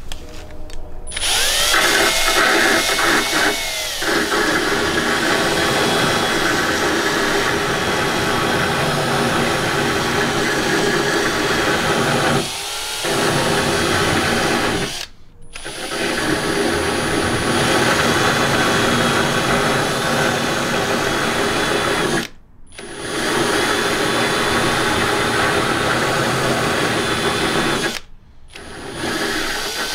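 Electric drill spinning a rotary thread-repair cutter against the damaged threads of a steel bolt, cleaning up the thread. The drill runs steadily, stopping briefly and restarting three times.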